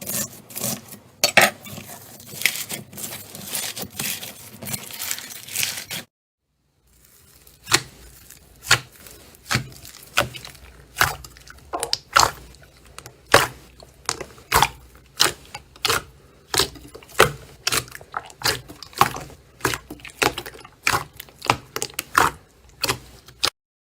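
Slime being squeezed and worked by hand, giving crisp clicking pops and crackles. After a short break about six seconds in, the pops come steadily, roughly two a second, and stop just before the end.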